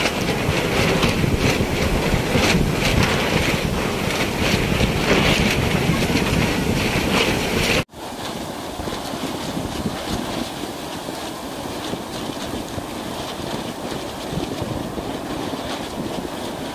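Sea surf breaking and washing up the sand, with wind buffeting the microphone. About eight seconds in the sound drops out for an instant and comes back quieter.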